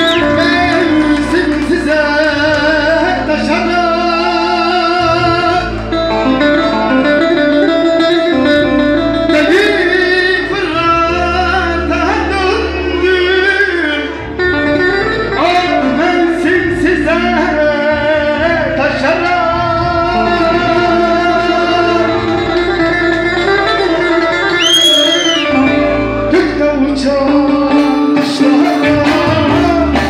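Live Turkish folk song (türkü): a man sings into a microphone in wavering, ornamented lines over amplified accompaniment with plucked strings.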